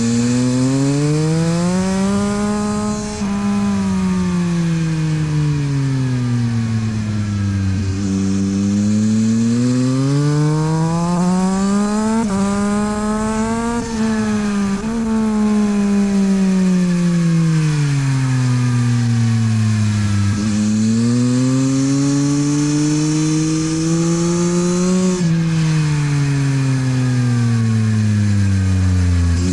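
Yamaha MT-09 SP's three-cylinder engine through a LeoVince exhaust, being ridden hard on track. The revs climb and fall in long sweeps about four times, rising under acceleration with short breaks at gear changes and falling away under braking, with wind rush over the top.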